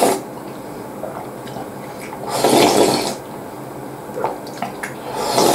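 A person slurping rich ramen broth straight from the bowl. There are two loud slurps, one about two and a half seconds in and one near the end, with small clicks between them.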